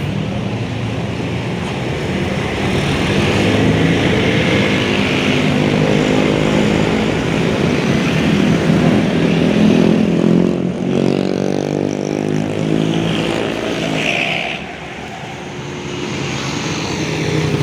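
Tour bus diesel engine running hard as it passes close by. About eleven seconds in the sound dips briefly, and then the engine note climbs before the bus moves off.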